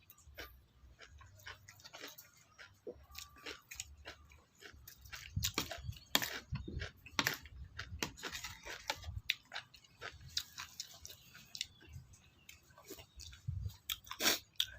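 A person chewing crunchy food close to the microphone: irregular crisp crunches and wet mouth clicks, busiest in the middle.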